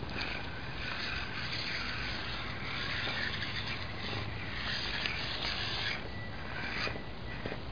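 Custom Wild Willy RC rock crawler's electric motor and gearbox whirring as it crawls over rocks, easing off about six seconds in.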